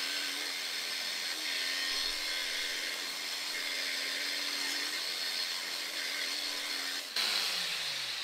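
Electric polishing machine running steadily with its pad on fresh moped paint. About seven seconds in it is switched off and winds down with a falling pitch.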